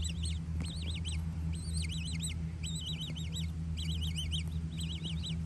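Juvenile coots giving high-pitched peeping begging calls, in quick runs of three to five notes repeated over and over. A steady low hum runs beneath.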